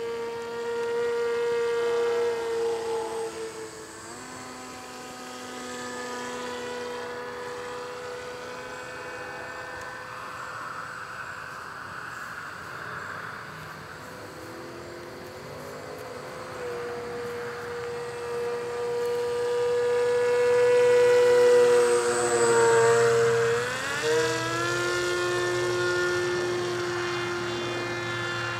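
Remote-control foam model plane (an Enterprise-A kit) in flight: the whine of its motor and propeller, holding a steady pitch that steps down a few seconds in. Later the pitch dips briefly and glides back up to a higher note, with the sound loudest a little past two-thirds through.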